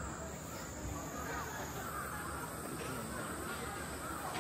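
Evening outdoor ambience: a steady high-pitched insect drone over faint distant voices and wavering calls.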